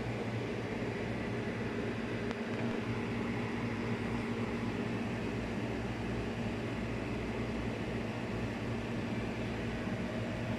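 Steady hum and whir of a running household appliance's motor and fan, holding a constant low drone under an even hiss.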